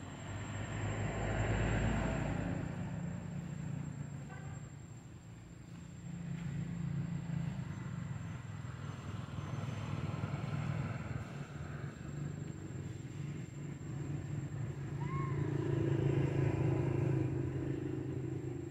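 Road vehicle engines passing, their sound swelling and fading three times, with a short rising chirp about fifteen seconds in.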